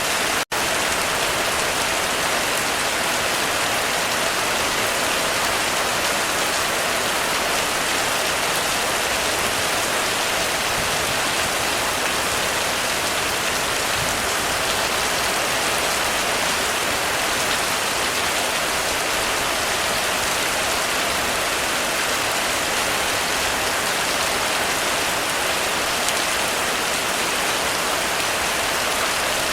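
Heavy rain falling steadily on a roof, an even, unbroken hiss. It cuts out for an instant about half a second in.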